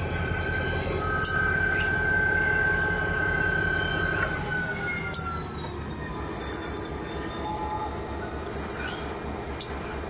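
Diesel locomotive (EMD GP40-2) running, a steady low rhythmic engine sound under a high whine that slides down in pitch about four seconds in as the sound eases off, with a few sharp metallic clicks.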